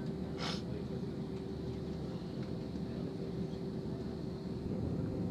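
Jet airliner's engines and airframe heard from inside the cabin while taxiing: a steady low rumble with a constant hum. There is a brief hiss about half a second in, and it grows slightly louder near the end.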